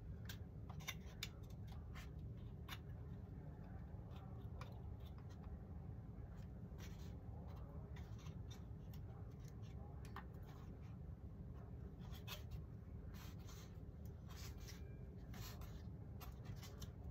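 Light, scattered clicks and rubbing from wooden model-aircraft parts, a plywood leading edge, being handled and fitted on a building board, over a steady low hum.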